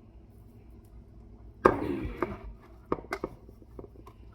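Kitchen clatter while seasoned meat is mixed together: one sharp knock about a third of the way in, followed by several lighter clicks and knocks.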